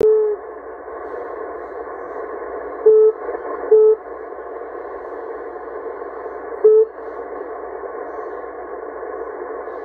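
Shortwave AM reception on a Kenwood TS-570D receiver tuned to 6925 kHz: a thin, steady hiss of static. Four short, loud beeps cut through it, the first at the very start, two close together about three seconds in, and one near seven seconds.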